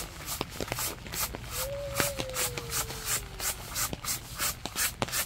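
Hand brush sweeping a tent groundsheet in quick, even strokes, about three a second. A thin tone glides slowly downward through the middle.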